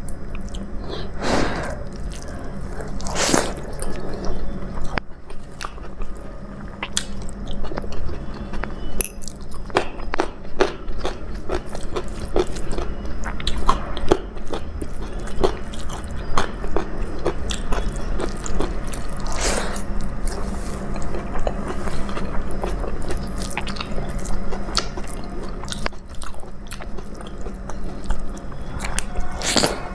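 A person eating a rice-and-dal thali close to the microphone: continuous wet chewing and small mouth clicks, with a few louder crunches about a second in, around three seconds in, near the middle and near the end.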